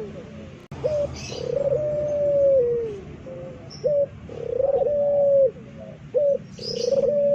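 Puter pelung (domestic ringneck dove) giving its loud, long-drawn coo. Each phrase is a short rising note followed by one long held note that drops at the end, repeated three times.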